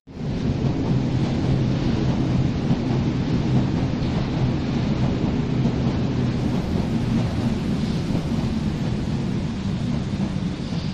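Berlin U-Bahn small-profile train, an A3L92 coupled to an A3E, entering an underground station: a loud, steady rumble of wheels and running gear that starts suddenly just after the beginning and holds throughout.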